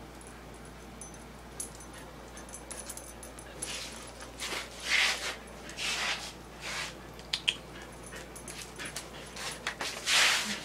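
Siberian husky breathing close to the microphone in short, breathy huffs and sniffs, starting a few seconds in, with a couple of sharp clicks of claws on the tile floor.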